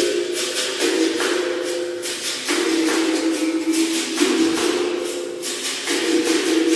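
Berimbau played with its caxixi basket rattle: the twanged wire rings on one pitch, then a step higher, switching back and forth, over an even rhythm of shaken rattle strokes.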